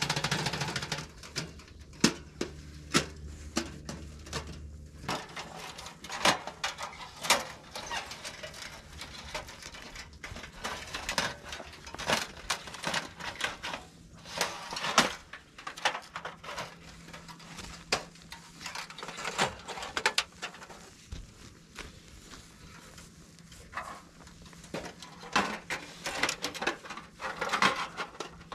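Thin metal panels of a folding wood stove being dismantled and stacked by hand: irregular clinks, taps and clacks as the plates knock against each other and are set down.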